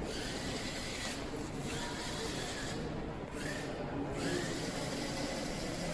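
Small DC gear motors of an Arduino robot car whirring as it drives, with a whine that rises in pitch several times as the motors start up again.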